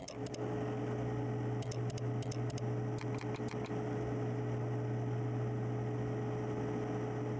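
A steady low hum with a fainter, higher steady tone above it, and a scatter of short sharp clicks between about one and a half and four seconds in.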